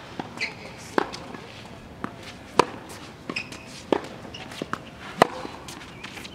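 Tennis rally on a hard court: sharp racket strikes on the ball and ball bounces, evenly spaced about a second and a half apart, with footsteps between shots.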